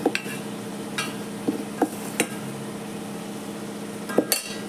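A metal spoon stirring masala in a cooking pot, clinking and scraping against the pot several times over a steady background, with the loudest pair of knocks about four seconds in. The masala is being sautéd after chilli powder has been added.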